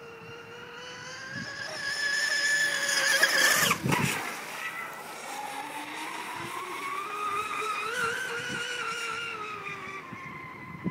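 Electric RC speed boat with a Leopard 4074 brushless motor, whining at speed. The whine grows to its loudest about four seconds in with a short rushing noise. The pitch then drops, climbs to a second peak and eases off near the end.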